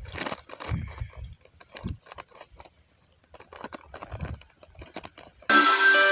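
Dry sand being scooped by hand into a small plastic packet: quick, light rustles and crinkles of sand and plastic. About five and a half seconds in, instrumental background music starts suddenly and is the loudest sound.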